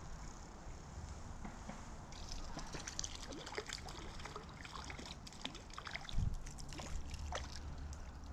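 Water splashing and trickling in a shallow creek as a hooked trout thrashes at the surface on a fly line, a dense run of small splashes starting about two seconds in. A low bump about six seconds in.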